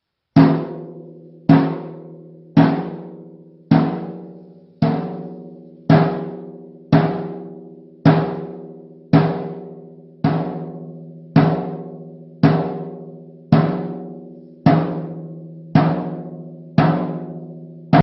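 A musical instrument struck seventeen times at an even pace, about once a second. Each strike gives the same low ringing note that fades away before the next.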